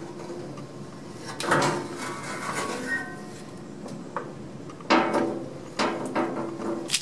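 Metal skid plate guarding a truck's fuel tank scraping and clanking as it comes down off a floor jack and tips onto the concrete floor. It comes in a few separate bursts, the loudest about five seconds in.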